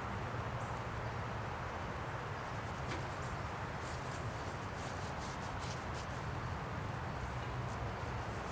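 Steady low outdoor background rumble, with scattered faint short ticks and taps in the second half.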